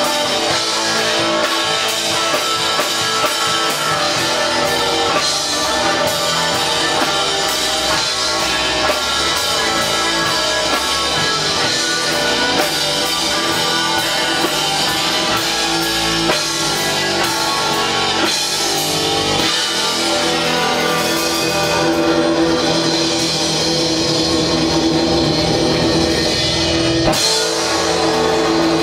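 Live rock band playing an instrumental passage: electric guitars over a drum kit, with held guitar notes ringing in the second half.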